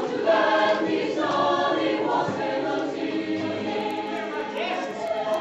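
A madrigal choir of mixed voices singing in harmony, holding long chords that change every second or so.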